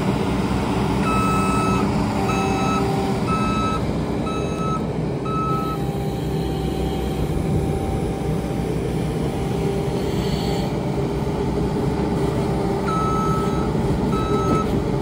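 New Holland 328 skid steer running steadily as it works a manure pile, its backup alarm beeping in a regular series for the first few seconds and again near the end. A tractor engine idles alongside.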